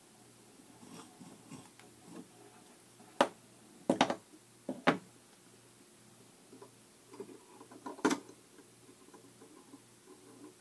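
Handling noise from a toy's small speaker and its plastic casing being worked by hand: faint rustling with a few sharp clicks and taps, the loudest about three, four, five and eight seconds in.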